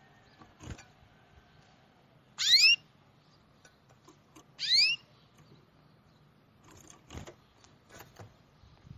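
A bird giving two short, loud rising calls, about two seconds apart, with a few faint taps in between.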